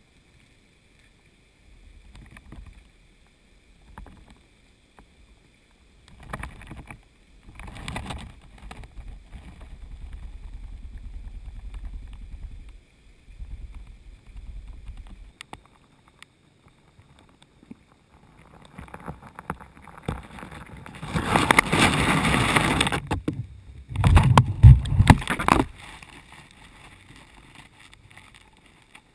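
Muffled water noise and scattered knocks picked up by a submerged camera, with two loud bursts of rushing noise late on.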